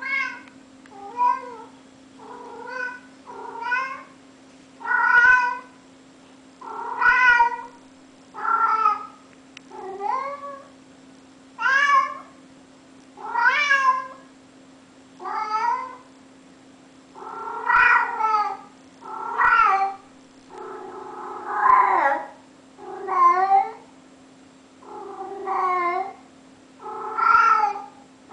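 A domestic cat meowing over and over: a long series of drawn-out calls, about one every one and a half seconds, many of them bending or rising in pitch.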